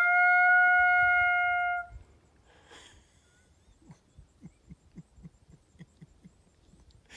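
Deer bleat call sounding one drawn-out bleat that rises in pitch at the start, holds on one steady tone and stops about two seconds in. Faint soft ticks follow.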